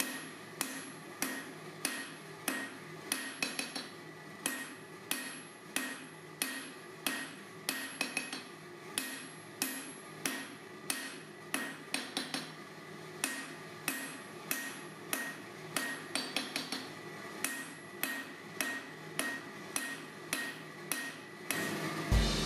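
Hand hammer striking hot steel on an anvil in forging, a steady run of blows about one and a half a second, some in quick pairs or triples, each with a bright metallic ring.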